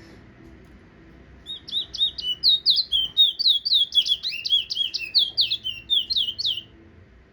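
Towa-towa finch singing a fast, whistled song of quick rising and falling notes. The song starts about a second and a half in and runs for about five seconds.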